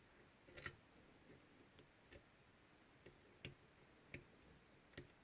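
Faint, irregular clicks of a hook pick and tension wrench working the pin stacks inside a Schlage Everest lock cylinder, about seven small ticks spread over five seconds.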